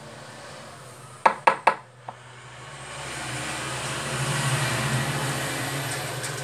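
Three quick sharp knocks on the wooden workbench about a second in, with a fainter one just after, then a rushing noise that swells and fades over several seconds above a steady low hum.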